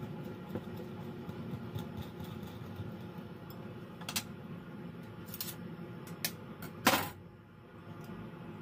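Wire balloon whisk beating thick cream-cheese cheesecake batter in a glass bowl: quick, irregular scraping and clicking of the wires against the glass, with one louder knock near the end.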